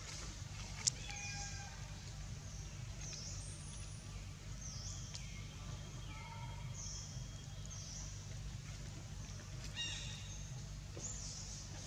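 Birds calling in the forest: short, high chirps that fall in pitch, repeated roughly once a second, over a steady low background hum, with one sharp click about a second in.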